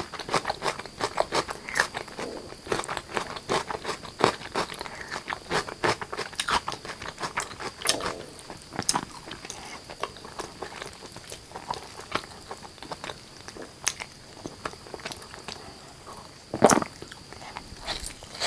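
Close-miked eating sounds of spicy chicken curry with rice: wet chewing, smacking and biting, dense for the first several seconds, then sparser. One loud knock comes near the end, with a faint steady high whine underneath.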